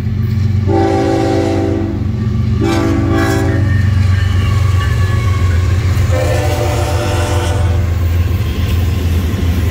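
Florida East Coast Railway freight train's horn sounding three blasts: two close together in the first few seconds, then a longer one about six seconds in. Under the horn, the lead GE ES44C4 locomotives rumble steadily as they pass, followed by double-stack container cars rolling by.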